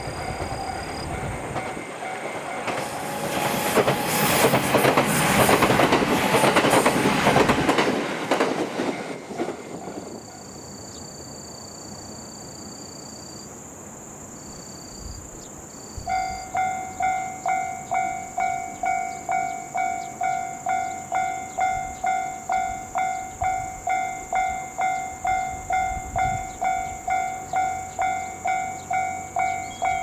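A JR West 289 series electric train passes the crossing, its rushing rumble rising to a peak and dying away by about ten seconds in. After a quiet spell, the level-crossing alarm starts about sixteen seconds in, a bell-like electronic ding repeating about twice a second.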